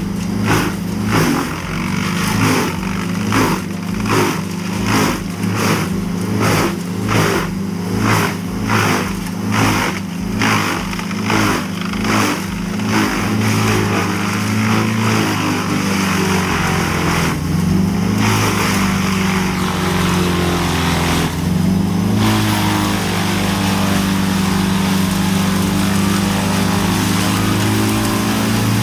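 Vermeer BC 2100 XL drum wood chipper running hard as it chews through gum tree branches. For the first half there is a rhythmic pulse about one and a half times a second, then the engine settles into a steady drone, its pitch sagging briefly a little after the middle.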